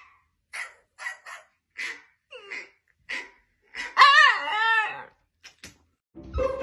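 Husky "talking": a run of short huffs and grunts, then about four seconds in a loud, howl-like vocalization that wavers up and down in pitch for about a second. Music starts near the end.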